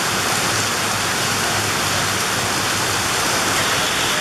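Steady, loud hiss of heavy rain falling.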